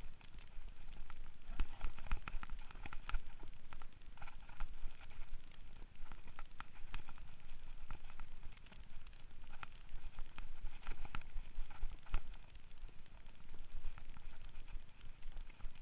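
Mountain bike riding over a rough dirt trail: irregular clatter and knocks from the bike and its rider-mounted camera over bumps, over a low rumble of wind and tyres on dirt.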